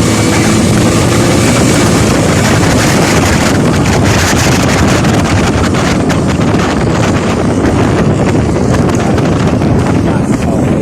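Wind rushing hard over the microphone of a moving vehicle, steady and loud, with road and engine noise underneath.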